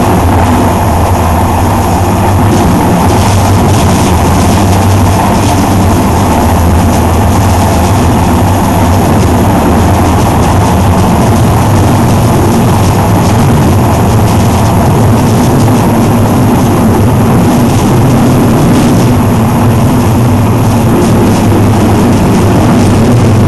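Loud, steady running noise inside the cab of a moving train: a low locomotive drone over the rumble of the wheels on the rails, with a thin high whine on top.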